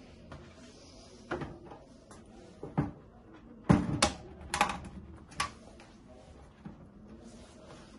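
Power plug being pushed into the socket on a stainless-steel boba milk shaker machine while the machine is handled: about six sharp clicks and knocks in a few seconds, the loudest near the middle.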